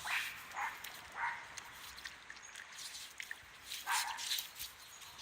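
A dog's paws scratching and scraping in wet dirt in short rough strokes: three in the first second and a half, then two more a few seconds later.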